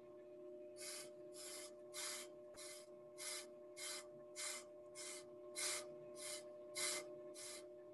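Brake lathe running with a steady motor hum while the cutter bit scrapes the inside of a spinning brake drum in short regular rubs, about one every 0.6 s. The rubs start about a second in and come once per turn of the drum as the bit touches its surface.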